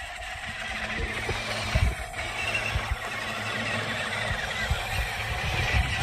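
Electric drive motors and gearboxes of two toy RC trucks running under load as they pull against each other on a tow rope, tyres spinning and scrabbling in loose sand. A couple of sharp knocks come about two seconds in.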